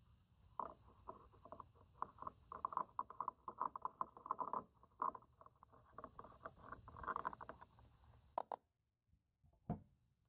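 Quick, irregular clicking and tapping for several seconds, then two sharp separate clicks about a second apart.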